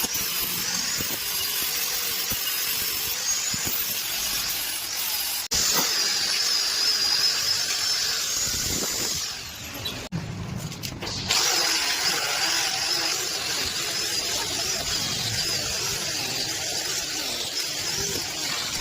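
A handheld power tool running on stainless steel: a high, wavering whine over a grinding hiss. It breaks off briefly about five and a half seconds in and again around ten seconds.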